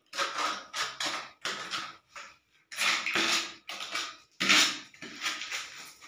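Steel trowel scraping and spreading cement mortar across the back of a ceramic wall tile, in a series of short, uneven strokes.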